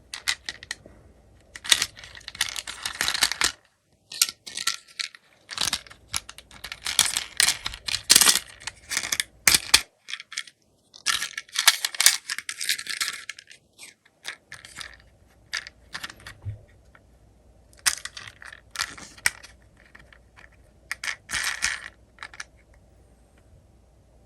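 Die-cast toy minicars clinking and clattering against each other and their box, in bursts of sharp metallic clicks with short pauses between.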